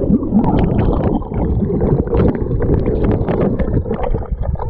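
Lake water sloshing and bubbling over a camera held at the surface, dipping in and out of the water: a dense churning noise with many small splashes and knocks.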